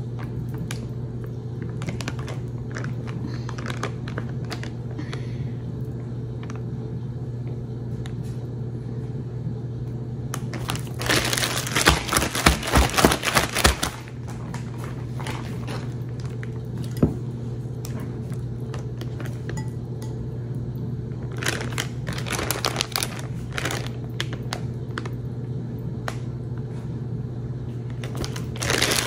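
Battered chicken pieces crackling and sizzling in hot frying oil, with two louder stretches of denser sizzling about eleven and twenty-two seconds in. A steady low hum runs underneath.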